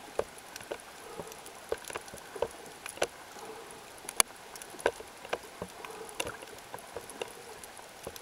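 Underwater ambience: irregular sharp clicks and crackles, a few a second and uneven in loudness, over a steady hiss.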